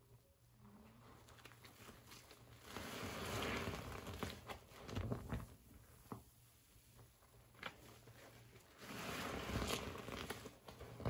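Rustling and handling noises in two spells of a second or two each, with a few sharp clicks in between.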